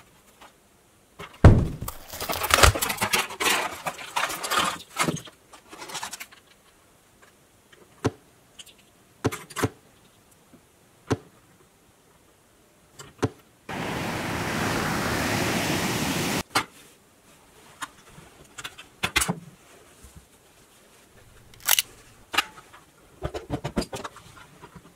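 Handling of a plastic toy 4x4 and its packaging: a burst of crinkling and rustling from about one and a half to six seconds in, then scattered sharp plastic clicks as small parts are fitted onto the roof rack. A steady hiss lasts about three seconds in the middle.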